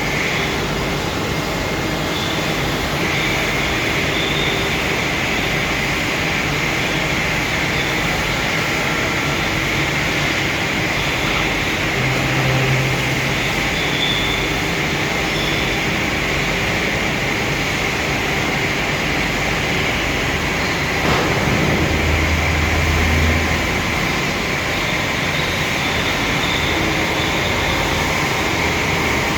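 Machinery running with a loud, steady noise and a faint high whine. Twice a brief low hum rises out of it: once near the middle and again a few seconds before the end.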